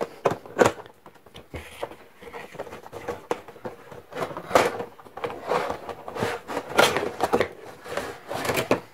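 A cardboard toy box and its plastic insert being handled and opened: irregular clicks, taps and short scrapes of cardboard and plastic.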